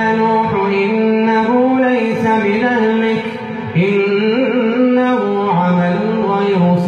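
An imam's voice reciting the Quran in a slow melodic chant, holding long drawn-out notes that rise and fall, with a short pause a little after halfway before a new phrase begins.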